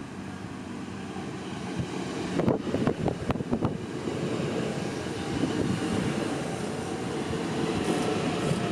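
A NordWestBahn BR440 (Alstom Coradia Continental) electric multiple unit pulling into the station past the platform. Its wheels give a run of sharp knocks a few seconds in, then a steady rolling rumble with a faint whine as the cars go by.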